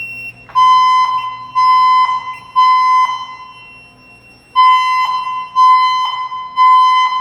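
Silent Knight 6820EVS emergency voice system sounding its fire alarm evacuation tone through the building speakers: a steady beep in the temporal-three pattern, three half-second beeps, a pause, then three more.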